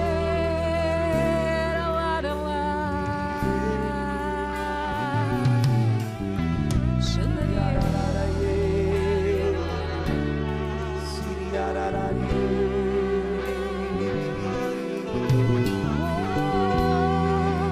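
Worship music: wordless singing over sustained guitar and keyboard chords.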